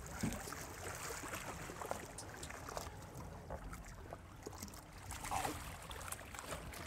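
Water splashing and lapping against a boat's hull as a sailfish is held thrashing at the side, with small scattered splashes and drips, over a low steady rumble.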